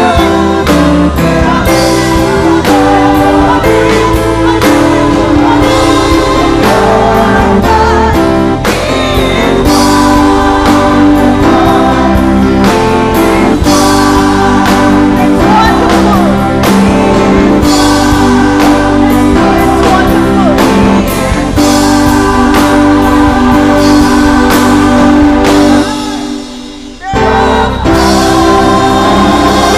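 Gospel worship music: singing over a full band with a steady beat. The music drops out for about a second near the end, then comes back in.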